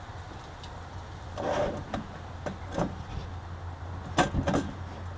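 New brake line tubing being handled and fitted by hand into the engine bay: scattered light metallic clicks and rubs as the line touches brackets and the frame, with a few sharper ticks about four seconds in. A steady low hum runs underneath.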